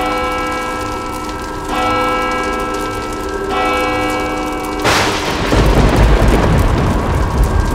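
Film soundtrack: a deep bell-like tone tolls three times, a little under two seconds apart, each strike ringing on. About five seconds in, a sudden crash breaks over it and turns into a loud, low, continuous rumble.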